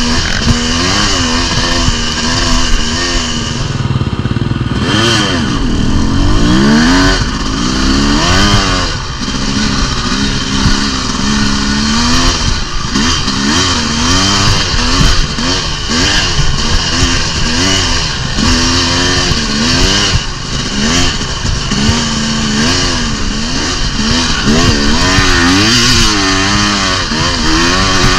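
Dirt bike engine being ridden hard, its pitch rising and falling over and over every second or two as the throttle opens and closes.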